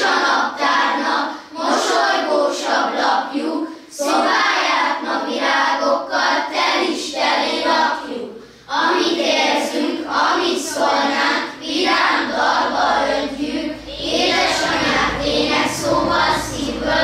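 A group of children singing a song together, in sung phrases with short breaks between them.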